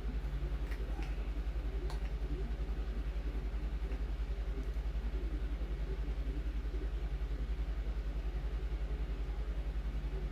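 Steady low machine hum with a fast, even pulse, and a few light clicks in the first two seconds.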